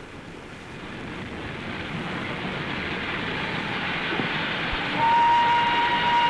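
Steam express train approaching, its running noise growing steadily louder, then the locomotive's whistle sounding one held note about five seconds in.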